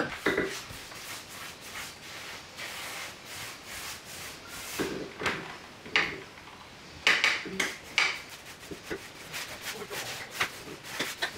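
Paintbrush rubbing paint onto wooden tongue-and-groove wall boards: irregular scratchy brush strokes, some louder and sharper than others.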